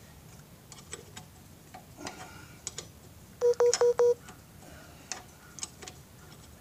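A phone sounds four short, quick beeps at one steady pitch about halfway through, a warning that its battery is down to about 5%. Faint clicks of hand tools on metal can be heard around it.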